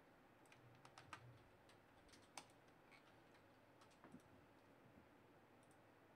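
Faint, irregular clicks of a computer mouse and keyboard over near silence.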